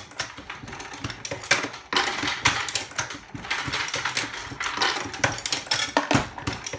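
Dillon XL650 reloading press being cycled by hand: a run of metallic clicks and clinks as brass cartridge cases are set onto the shell plate and the handle and plate move, with a few louder clunks.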